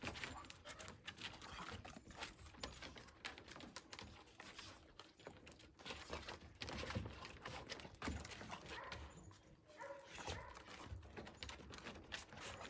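Footsteps and a dog's claws clicking on deck boards as a person and dog walk together: irregular soft taps and knocks.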